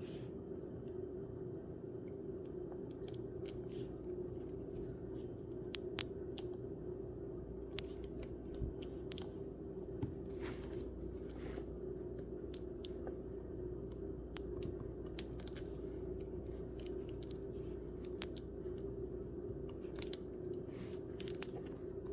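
A steady low hum with many small, sharp clicks and taps scattered through it, like small plastic pieces being handled.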